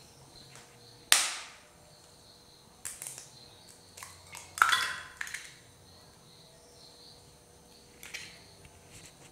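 An egg cracked with one sharp tap, then dropped into oil in a non-stick pan, giving a short crackle and spatter about four and a half seconds in. Smaller crackles follow near the end.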